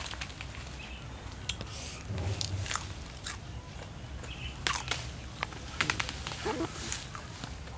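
Mango tree leaves and twigs rustling, with scattered sharp cracks and snaps, as green mangoes are pulled from a cluster by hand.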